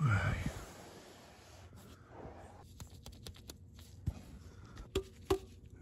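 Quiet handling noise from work under a car: rustling with a few light, sharp clicks and taps near the end, and a brief vocal sound right at the start.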